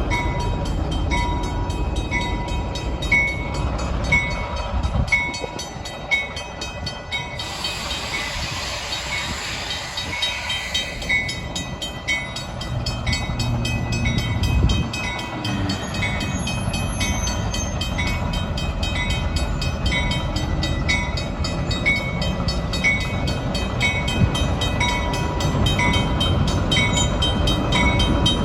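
A train locomotive rumbling with a bell ringing steadily, about one and a half strokes a second. There is a burst of air hiss about a quarter of the way in.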